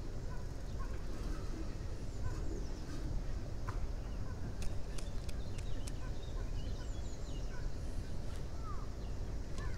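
Birds chirping and calling in short, scattered notes over a steady low rumble, with a few sharp clicks.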